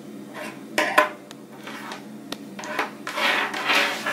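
Handling noise: a few sharp clicks and knocks, then bursts of crinkling rustle from packaging plastic being moved on a wooden table.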